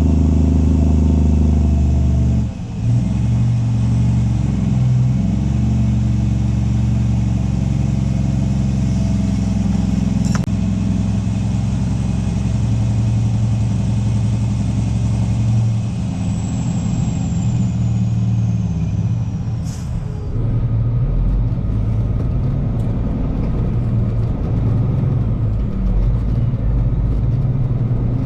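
Semi truck's diesel engine running steadily, with a brief dip and change in its note about two and a half seconds in and another change around twenty seconds in.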